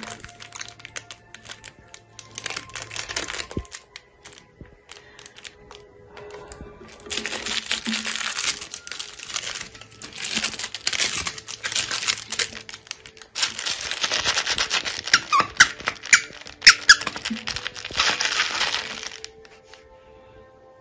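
Scratchy rustling and scuffling as a cat wrestles with a hand on a rug, coming in three bursts with the longest near the end, with a few short squeaks in the middle of that last burst.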